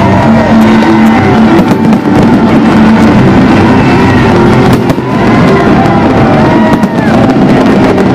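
Fireworks display: a dense, continuous run of bangs and crackles, with short whistles rising and falling over it and loud music playing underneath.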